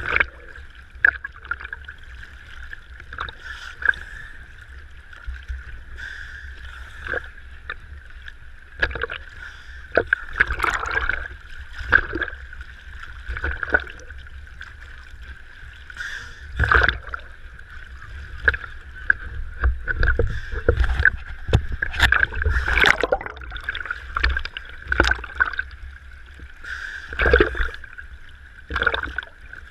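Sea water slapping and sloshing against a camera held at the surface, with irregular sharp splashes as waves wash over it and a low rumble of moving water.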